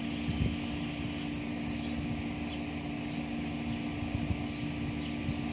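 Outdoor background of a steady low hum over a rumbling haze, with a few faint high chirps now and then.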